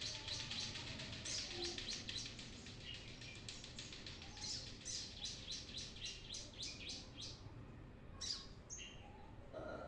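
Brown-throated sunbird (kolibri kelapa) singing: a fast, unbroken run of high, sharp chirps, several a second, that breaks off briefly near the end before a few more notes.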